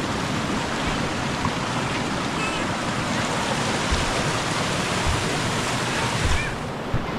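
Rushing water, a steady full rush, whose upper hiss drops off about six and a half seconds in.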